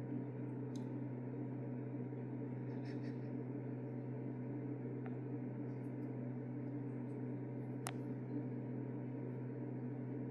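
A steady low hum under a faint hiss, with a few small ticks, the sharpest about eight seconds in.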